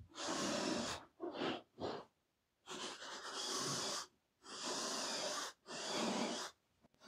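Cordless drill-driver driving screws into plywood in a series of short runs, from a fraction of a second to about a second and a half each, with brief pauses between them.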